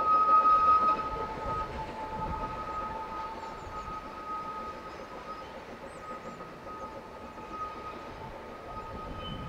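Narrow-gauge steam locomotive sounding a long, steady two-note whistle over hissing steam, loudest at first and fading slowly. Birds chirp faintly in the second half.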